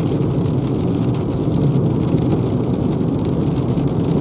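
Steady road and tyre rumble inside the cabin of a Renault Zoe electric car at about 82 km/h on a wet road, with no engine note. Faint ticks of rain on the windscreen ride over it.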